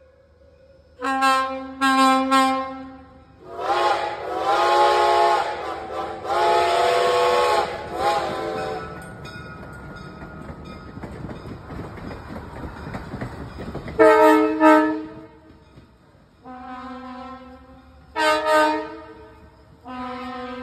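Budd RDC diesel rail car's air horn sounding a few short blasts, answered by Reading & Northern 2102's steam chime whistle in two long blasts with wavering pitch. The rail car then rolls past with wheel noise, and its horn sounds several more short blasts near the end.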